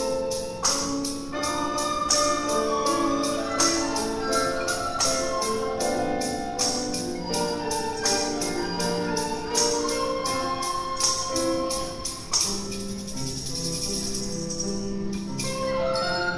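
A children's recorder ensemble playing a tune together, with jingling percussion keeping a steady beat.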